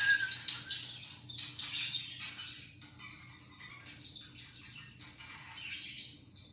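Budgerigar chatter: a rapid, continuous stream of short chirps and warbles that thins out near the end.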